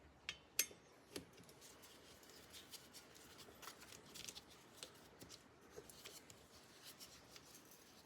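Faint, scattered light metallic clicks and scrapes of small parts and a hand tool being worked: the screws of a bicycle disc brake rotor being threaded into the hub. The sharpest click comes about half a second in.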